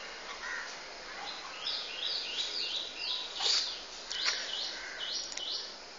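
A bird chirping in a quick run of short, high notes, about two or three a second, starting about a second and a half in and stopping shortly before the end.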